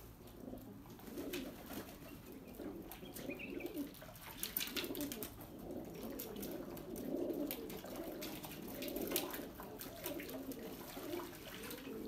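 Domestic pigeons cooing over and over, several birds at once. Short splashes and flutters come from birds bathing in a shallow pan of water.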